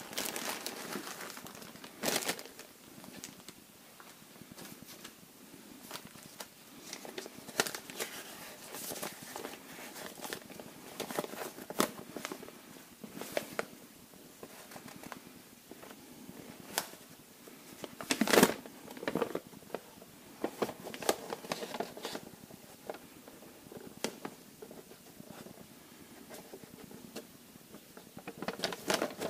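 Crinkling and rustling with scattered light clicks and knocks, loudest about two seconds in and again about eighteen seconds in: parts and tools being handled by hand.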